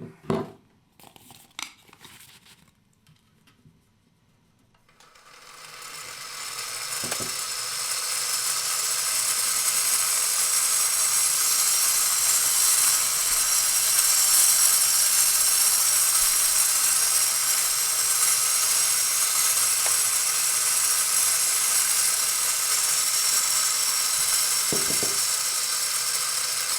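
A few clicks as the rig powers on, then a rain spinner's motor spins up over several seconds and runs on with a steady, noisy, high-pitched whir.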